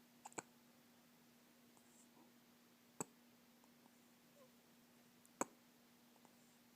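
Baby hiccupping: three short, sharp hics spaced about two and a half seconds apart, the first doubled with a smaller catch just before it.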